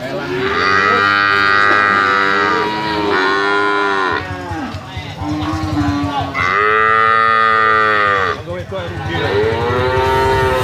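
Bali cattle mooing: about five loud, long moos one after another, the longest lasting about two seconds each.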